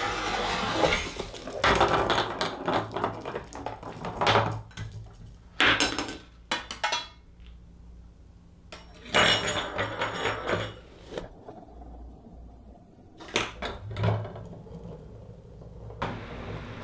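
Household objects in a Rube Goldberg chain-reaction machine knocking, clattering and sliding on a wooden tabletop: a string of separate clicks, knocks and short rattles with brief pauses between them.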